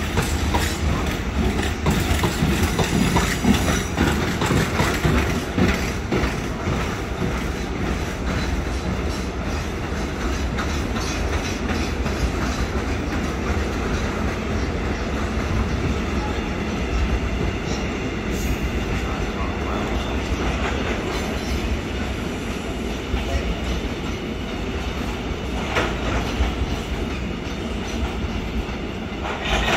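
Freight train of steel-coil wagons rolling past on the rails, the wheels clacking over rail joints for the first several seconds, then steady train noise that carries on, with a few more clacks near the end.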